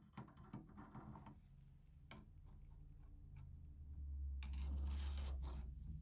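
Light metal clicks and scraping as a brass shower valve body is threaded into the wall and worked with a shower valve socket wrench. The clicks come irregularly, with a longer scraping stretch a little after four seconds in, over a low steady hum.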